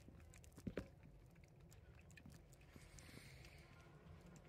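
A cat eating from a bowl: faint chewing clicks, with two sharper clicks close together a little under a second in.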